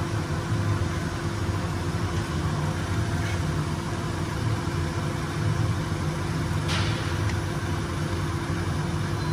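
Steady low mechanical drone with a constant hum tone in it, as from an engine or machine running in the background, and one faint click about seven seconds in.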